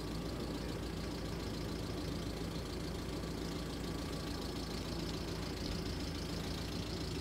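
A Mercedes-Benz van's engine idling steadily, a low even hum with no change in speed.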